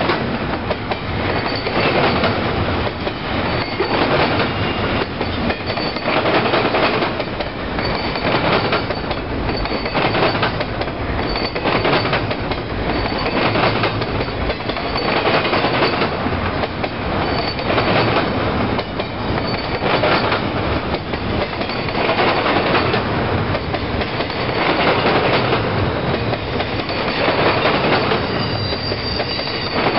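CSX double-stack intermodal train rolling past at speed: a loud steady rumble and rattle of well cars on the rails, swelling about every two seconds as each car goes by, with faint high wheel squeals now and then.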